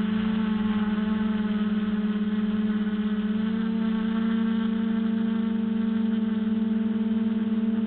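Quadcopter's electric motors and propellers humming steadily in flight, a buzzing drone that steps up slightly in pitch a little over three seconds in.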